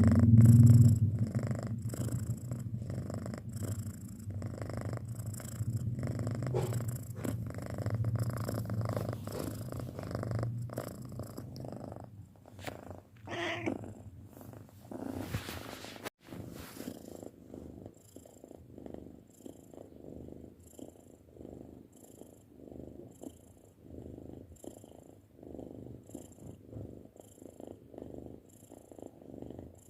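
A six-month-old cat purring close up, loud at first and then softer, the purr swelling and easing about once a second with its breaths. A brief higher-pitched sound comes about halfway through.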